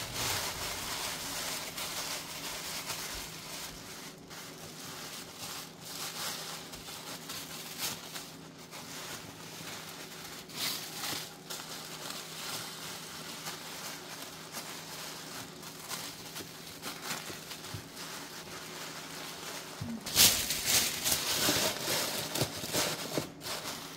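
Tissue paper rustling and crinkling as it is handled and wrapped around a crystal by hand, with louder crinkling near the end.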